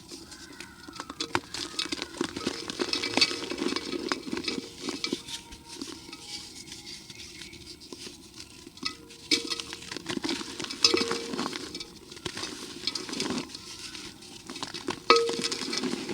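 Dry cement and dirt crumbling and grating against a clay pot: a steady run of gritty crackles and clicks, with a brief ringing tone a few times. The loudest crack comes near the end.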